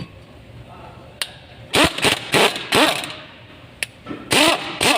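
Sharp metal knocks and clanks, about seven over a few seconds with a short ring after several, as a brake disc is worked off the hub of a Mitsubishi Pajero.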